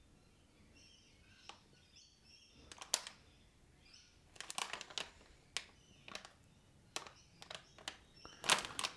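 Crinkling of a metallized anti-static bag and clicks of a populated amplifier circuit board being handled on it, in scattered bursts with the loudest crackle near the end as the board is lifted off the bag.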